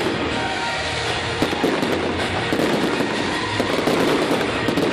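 Fireworks going off in a dense, continuous barrage: many bangs and crackles overlapping without a pause.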